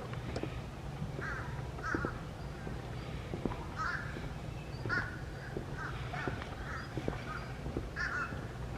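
Outdoor bird calls: short calls repeated at irregular intervals of about one to two seconds, over a steady low background and faint clicks.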